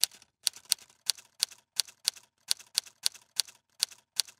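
Typewriter sound effect: a steady run of sharp key strikes, about three a second.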